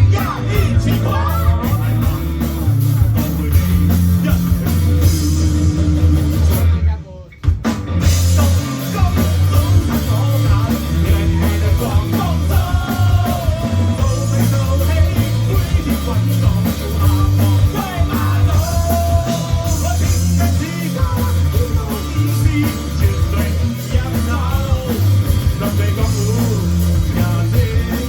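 A rock band playing live with a singer: heavy, pulsing bass and drums under guitar and vocals. The band cuts out for about a second roughly a quarter of the way in, then comes straight back in.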